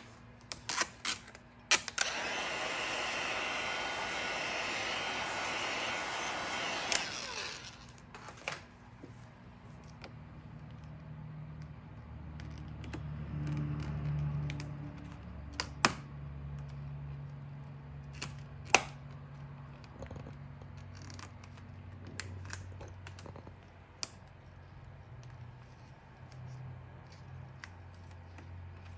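A heat gun blowing steadily for about five seconds near the start, then vinyl wrap film being pulled and pressed by hand over a car grille, with scattered sharp crackles and clicks from the film and a low hum underneath.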